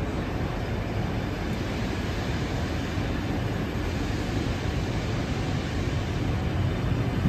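Steady low rumble of a train in the station, with no distinct knocks or whistles, growing slightly louder near the end.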